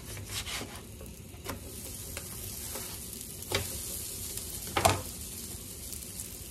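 Pupusas sizzling on a hot flat griddle, with a few short knocks and scrapes of a spatula. The loudest knock comes about five seconds in.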